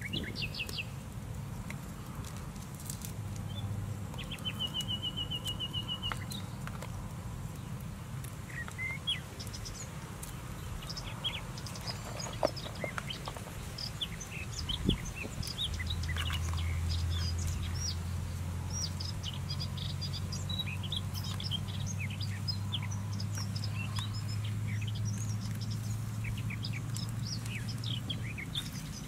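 Small birds chirping in many short, high calls, with one brief rapid trill early on, over a steady low hum. Two sharp knocks sound near the middle.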